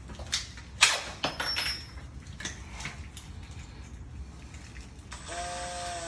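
Several sharp knocks and clicks, the loudest a little under a second in; then, about five seconds in, a cordless drill starts up and runs with a steady whine.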